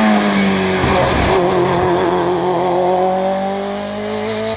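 BMW E36 3 Series race car engine at full throttle up a wet hillclimb. Its note drops as the car goes by, then climbs slowly as it accelerates away, with tyres hissing on the wet road.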